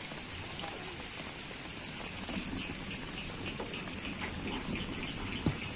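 Steady hiss of light rain falling, with a single sharp knock near the end.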